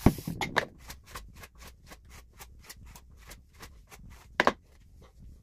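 Hairbrush pulled quickly through hair, a fast regular series of about four short swishes a second, with a sharp knock at the start and a louder one near the end.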